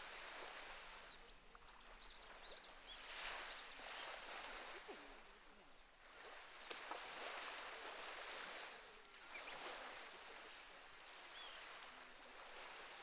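Small waves washing onto the shore, a soft hiss that swells and fades about every three seconds, with faint bird chirps over it in the first few seconds and again later on.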